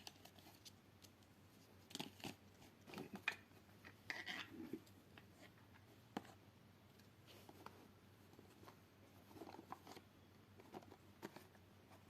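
Faint scattered clicks and rustles of a ring's packaging being handled, bunched a couple of seconds in and again near the end.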